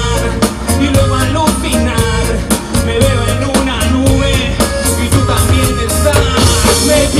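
Live band playing an upbeat, ska-tinged Latin rock song through a concert PA, with a drum kit keeping a steady beat under percussion and keyboards.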